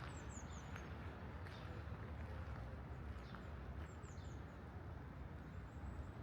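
Footsteps of a person walking on a garden path, with short, high bird chirps near the start and again about four seconds in, over a steady low rumble of distant city noise.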